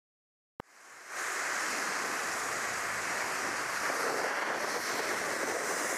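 Snowmaking guns blowing snow: a steady, loud hiss. It cuts in with a click about half a second in and rises to full level within a second.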